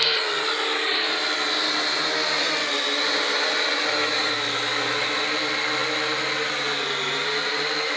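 DJI Phantom 4 quadcopter's four motors and propellers running with a steady, high whine.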